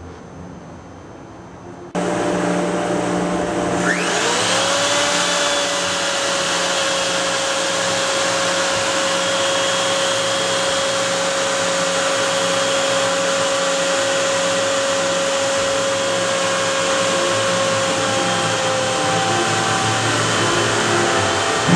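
A steady rushing machine noise starts suddenly about two seconds in. About two seconds later a high-speed router motor spins up with a quickly rising whine that settles into a steady running tone.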